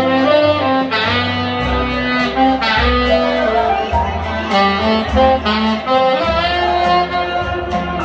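Tenor saxophone playing a smooth jazz-style melody live, with held notes and quick runs, over a backing track with a moving bass line.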